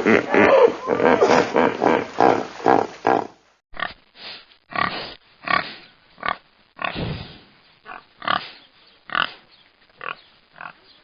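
Animal calls: a dense run of rapid calls, then, after a cut about three seconds in, separate short calls coming one or two a second.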